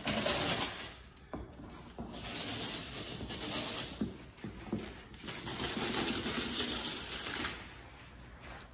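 Wrapping paper being torn and rustled off a large gift box, in three long stretches of ripping with quieter pauses between.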